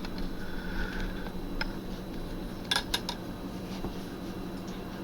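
Kitchenware clinking: a light click, then a quick cluster of sharp clinks about three seconds in, over a steady low hum.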